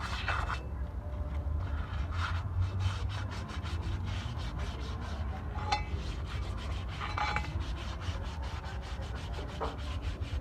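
Hand scrubbing of rust off a brake part with a hard abrasive: repeated, uneven rubbing and scraping strokes over a steady low hum.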